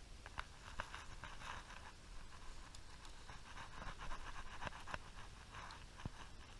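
Faint scratchy rustling and scattered light clicks from hands working a baitcasting rod and reel, over a low rumble.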